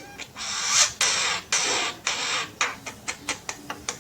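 Jungle myna making harsh, hissing rasps, three in a row, then a run of quick sharp clicks.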